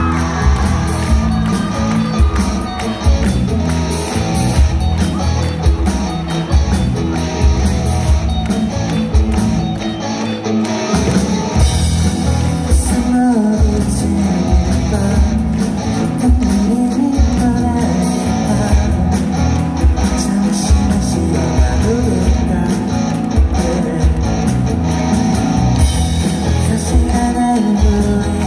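Live rock band playing: a male singer over electric guitars, drums and keyboard. The low end drops out for about a second near the middle before the full band comes back in.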